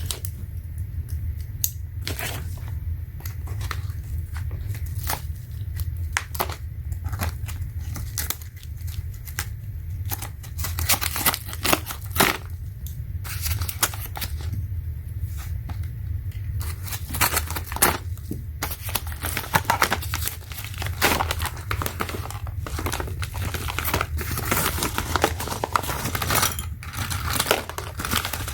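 Packaging being opened by hand: tearing and crinkling plastic and tape with many irregular crackles and rustles, busier in the second half, over a steady low hum.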